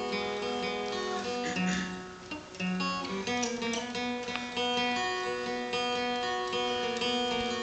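Acoustic guitar being played by hand, chords strummed and left ringing, with a short dip in loudness a little over two seconds in.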